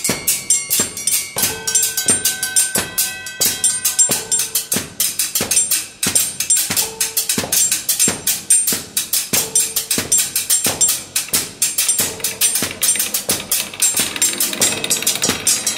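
Rhythmic percussive music: a fast, even patter of sharp strikes with a short mid-pitched tone recurring every second or two, the texture thickening near the end.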